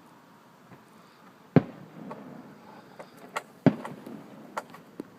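Fireworks display: two loud booms of aerial shells bursting about two seconds apart, with several smaller, sharper pops between and after them.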